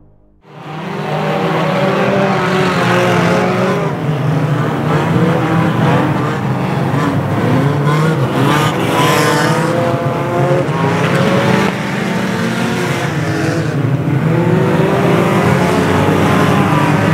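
A pack of unlimited banger racing cars on a dirt oval, many engines revving at once, their pitches rising and falling as drivers accelerate and lift off. It cuts in abruptly about half a second in and stays loud.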